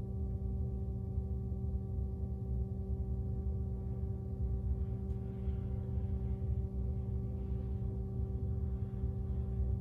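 Steady machine hum made of a low drone and several fixed tones, unchanging throughout, with a faint soft rustle through the second half.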